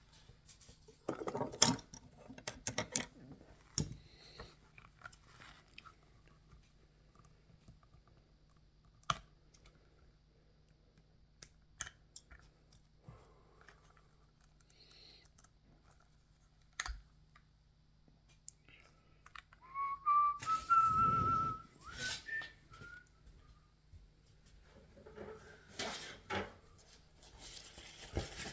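Scattered clicks and small crunches of a vintage plastic action figure and its rubber bands being handled while new He-bands are fitted into its waist. About twenty seconds in there is a brief high wavering tone over a rustle.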